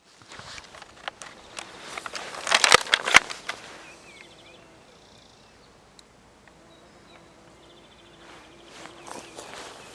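Footsteps and rustling for the first few seconds, loudest around three seconds in. Then a bumblebee buzzes faintly on and off as a low hum.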